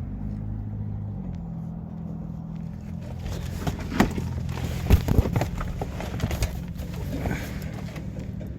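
An engine idling steadily. A run of sharp clicks and knocks comes in the middle.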